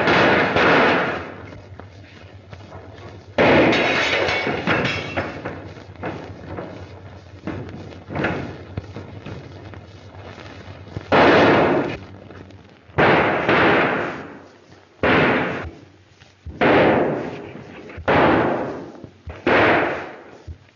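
Revolver shots in a gunfight, about nine, each a sharp bang that rings and dies away; the later ones come roughly every second and a half.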